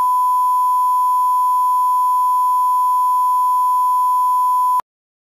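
Steady pure electronic tone, a single unchanging pitch like a test tone, held for nearly five seconds and cutting off suddenly near the end.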